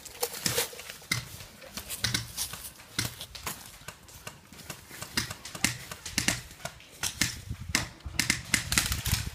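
Airsoft gunfire: an irregular string of sharp snaps and clacks from shots and BBs striking, with a dense flurry near the end.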